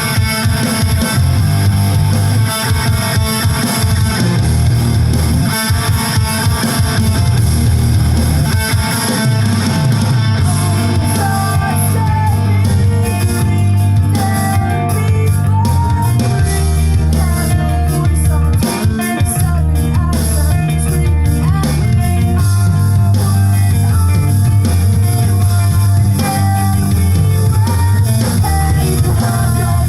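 Background rock music with electric guitar, bass and drums.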